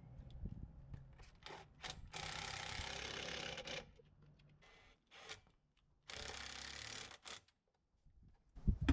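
Handheld cordless power driver running in two steady bursts, the first nearly two seconds long and the second about a second, with a little tool handling between them.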